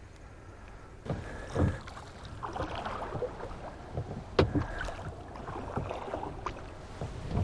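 A rowboat being rowed: knocks of the oars in the oarlocks and the swish of water with each stroke, about one stroke every three seconds.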